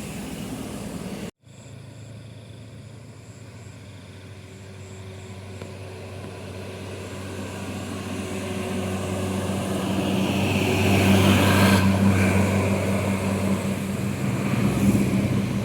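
Heavy diesel vehicle's engine approaching, holding a steady pitch as it grows louder to a peak about eleven seconds in, then easing slightly. The sound before it breaks off abruptly about a second in.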